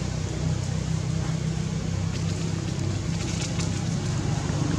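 A steady low engine-like hum, with a few faint crackles, such as dry leaves being stirred, between about two and three and a half seconds in.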